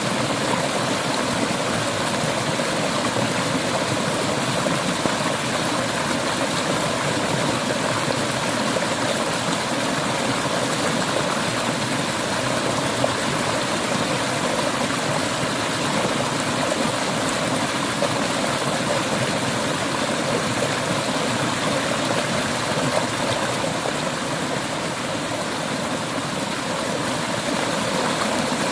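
Clear river water flowing and splashing, a steady even rush with no pauses.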